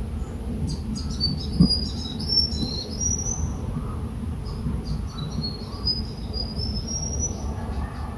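Small birds chirping in two quick runs of high, rising and falling notes, over a steady low rumble, with one short knock partway through.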